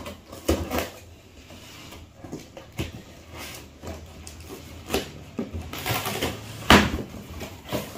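Scissors cutting the packing tape and cardboard flaps of a carton, making irregular crackling snips, scrapes and cardboard rustles, the loudest a sharp crack near the end.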